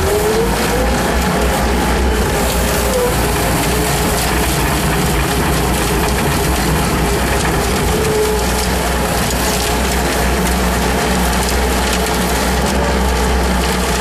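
Bobcat skid steer loader heard from the operator's seat, running its 72-inch hydraulic sweeper broom with new poly bristles, sweeping gravel and dirt: a steady low engine drone under a dense scratchy hiss, with a faint wavering whine.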